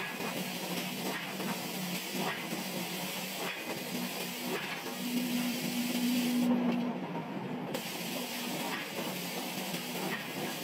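Heavy forging machinery running: a steady hiss over a low machine hum, with faint regular knocks a little slower than once a second. The hum swells about halfway through, and the hiss cuts out for a moment soon after.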